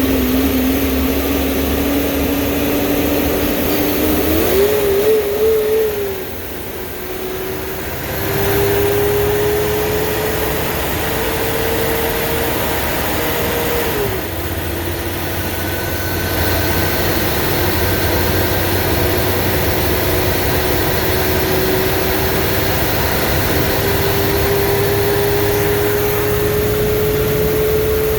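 Blue Bird school bus under way: a steady engine and drivetrain whine climbs slowly in pitch as the bus gathers speed. It drops back twice, about six and fourteen seconds in, as the transmission shifts up.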